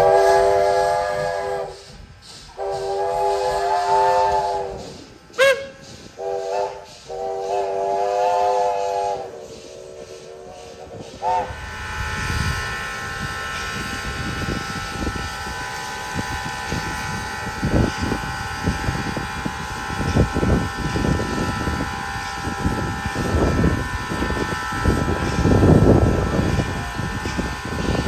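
Steam locomotive whistle blowing the long, long, short, long grade-crossing signal, the last blast trailing off quieter. It is followed by a steady mechanical running noise with a low rumble and several thin steady tones.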